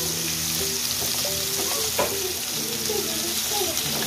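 Battered chicken pieces sizzling steadily as they shallow-fry in hot oil in a frying pan while being turned over, with a single sharp knock about two seconds in. Background music plays underneath.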